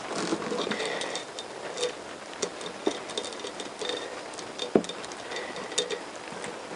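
Honda CBR1000F crankshaft and its drive chains being handled and lifted toward the crankcase: scattered metallic clicks and chain-link rattles, with one louder knock a little past the middle.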